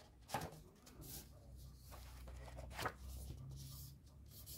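Faint rustling and a few light taps of a hardback book and its paper dust jacket being handled, with separate soft rustles near the start, about a second in, and just before three seconds.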